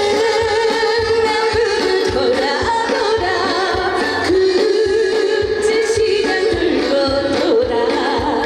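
A female trot singer singing live over an amplified backing track with a steady drum beat, holding long wavering notes.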